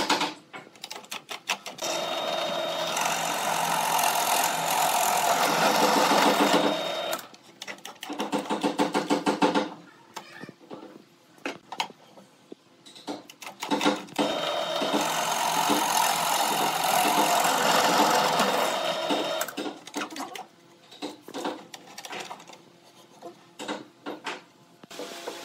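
Bench drill press boring into wood with a Forstner bit, in two long cuts of about five seconds each. Rapid rattling passes and scattered knocks come between the cuts.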